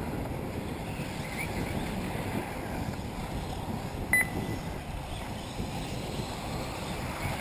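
Wind rumbling on the microphone, with one short high beep about four seconds in.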